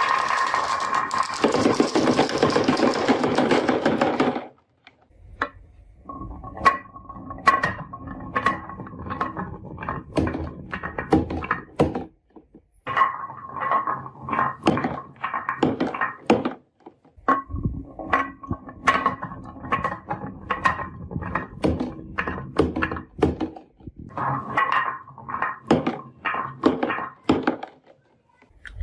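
Marbles rolling and clacking down a wooden marble run, a long run of irregular knocks and clicks with short ringing rolls between them. The first four seconds hold a dense, steady mechanical whirr that stops abruptly.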